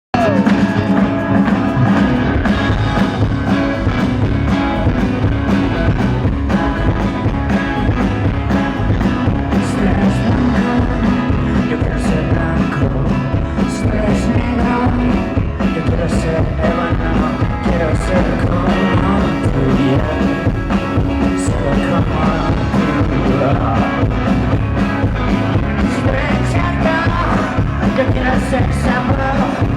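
Rock band playing live, loud and continuous, with a steady drumbeat.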